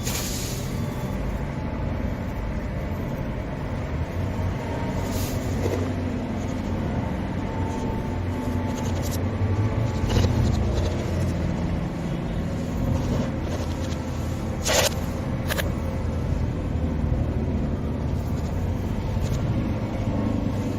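Car driving, its engine and road noise making a steady low rumble that starts abruptly, with a few short sharp clicks, the loudest about three-quarters of the way through.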